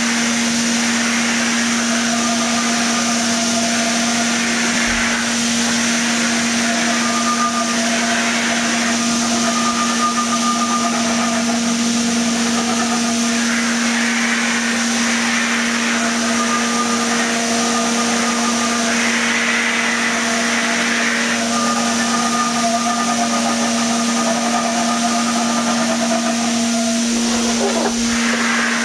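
Paint spray gun hissing as it sprays, the rush of air swelling and easing with each pass, over a steady motor drone.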